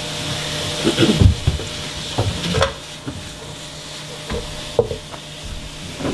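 Ground sausage sizzling as it browns in a skillet, with a utensil scraping and knocking against the pan as the meat is stirred and broken up. The sizzle is stronger in the first half, and the loudest knocks come about a second in.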